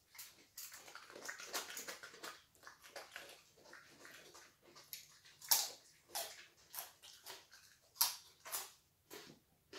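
A dog biting and chewing raw carrot: a run of crisp crunching, then separate sharp crunches, the loudest about halfway through and again near the end.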